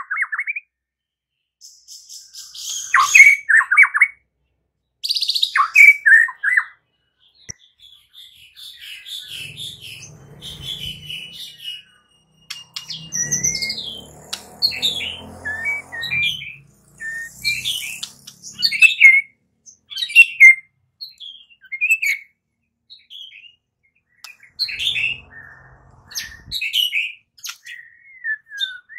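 White-rumped shama singing: phrases of short, quick-gliding whistles and chirps, separated by brief pauses and coming thickest in the second half.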